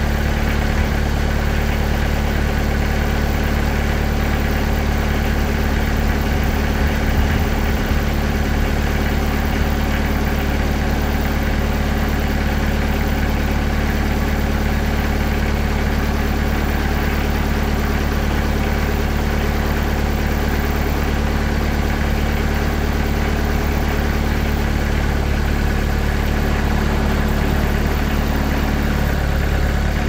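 Engine of a TimberKing 2020 portable bandsaw mill running steadily at a constant speed.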